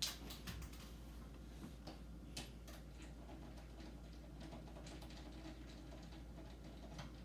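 Screwdriver backing screws out of the metal back frame of a monitor's LCD panel: a few scattered faint clicks and ticks of metal on metal.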